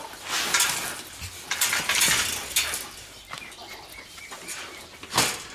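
Rattling and scraping of a chain-link gate being worked loose and lifted off its hinges, in irregular bursts with a sharp knock near the end. Faint bird calls about midway.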